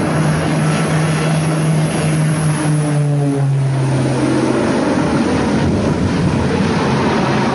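Twin-engine propeller plane's engines and propellers droning steadily, the pitch dropping about three and a half seconds in as the plane climbs away from the runway and banks steeply, over a constant rushing noise.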